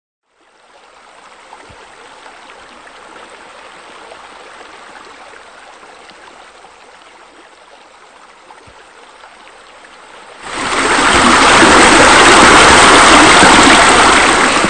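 Running water of pool water features, such as spillovers and sheer descents: a steady quiet trickling rush, then, about ten seconds in, a much louder rushing that lasts about four seconds before cutting off.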